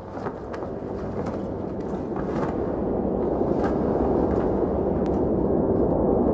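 A low rumbling drone swelling steadily louder, with scattered clicks and crackles over the first five seconds: a build-up that leads into ambient music.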